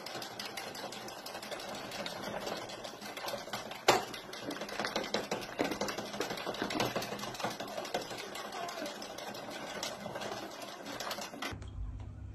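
Circular knitting machine clattering rapidly as its needles run round the ring, with one louder knock about four seconds in; the clatter cuts off abruptly near the end.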